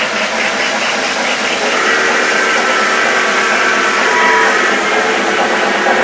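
O-gauge model trains running past on three-rail track: a steady whirring of wheels and motors with several steady whining tones, and a quick rhythmic pulsing in the first second.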